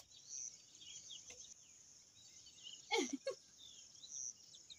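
Outdoor ambience of birds chirping in short repeated calls over a steady high-pitched insect buzz that pulses at a regular pace. About three seconds in come two short, falling voice-like calls.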